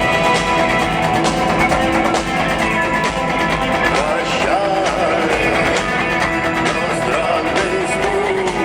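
Live rock band playing in an arena, electric guitars to the fore, heard loud and steady through the hall's sound system.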